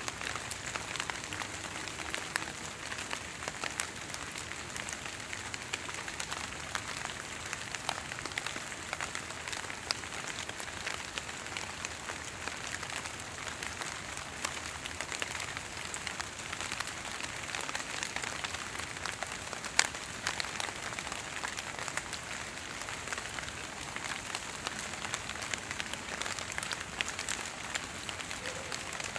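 Fog drip: water droplets that have gathered on the leaves and needles of tall trees in thick fog fall and land on the foliage below, a steady sound like light rain made of many small separate ticks. One drop lands louder about two-thirds of the way through.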